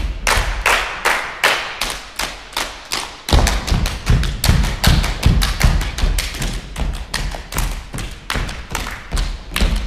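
Group body percussion on a wooden stage floor: rhythmic hand claps, foot stomps and slaps, about three to four hits a second, with heavy low stomps joining about three seconds in.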